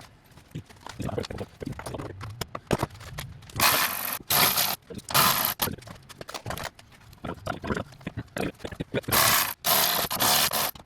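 Clattering and scraping of tools and metal parts, broken by five short loud hissing bursts of about half a second each, two of them close together near the start and two near the end.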